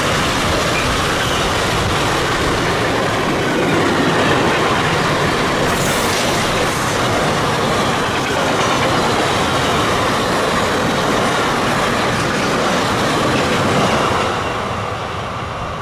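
Freight train of double-deck car-transporter wagons passing close at speed: a steady rumble and rattle of wheels on rails, dying away near the end as the last wagons go by.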